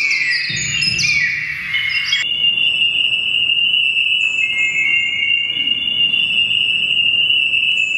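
Amplified, computer-processed hearing-aid feedback whistles: at first a cluster of overlapping falling chirps, which cut off about two seconds in and give way to a steady high-pitched whistle with fainter, higher tones above it.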